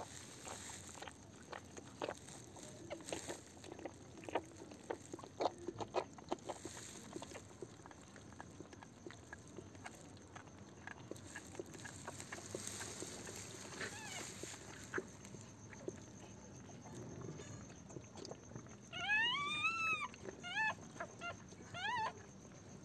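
A mother dog licking and chewing over her newborn puppies, with many quick wet clicks and smacks. Near the end a newborn puppy squeals five or six times in short, high cries that rise and fall in pitch.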